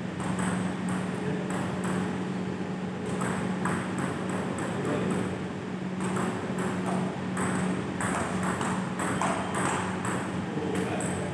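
Table tennis rally: the celluloid ball clicks sharply off the paddles and the table, at times several strikes a second, over a steady low hum.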